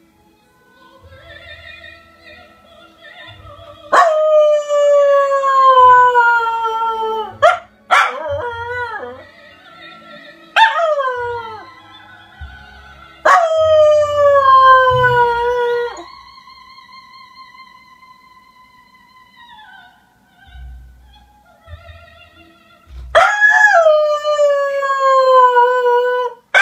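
Small terrier dog howling in a sing-song way: three long, loud howls, each starting high and sliding down in pitch. Between them come shorter howls that bend up and down, and about two-thirds of the way through there is a quieter held note with a slight waver.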